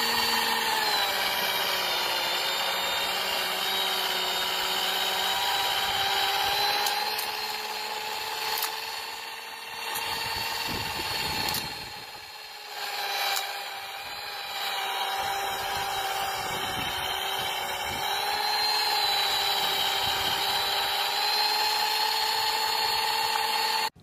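Remote-controlled model snowblower truck running, its motor giving a steady whine that wavers slightly in pitch as the blower throws snow. The sound drops briefly in loudness about halfway through.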